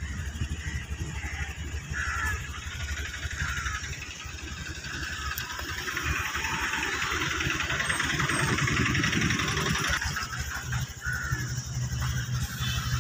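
Motor vehicle engine running at low level, a low uneven rumble with a steadier hum near the end, over general outdoor background noise.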